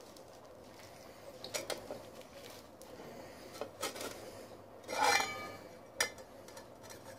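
Aluminium pot lid being handled on a workbench: scattered light knocks and scrapes, with a short ringing metallic clink about five seconds in and a sharp tap about a second later.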